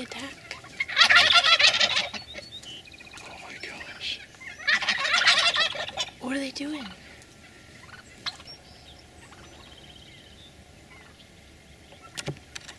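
Wild turkey gobblers gobbling: two loud gobbles, about a second in and again about five seconds in.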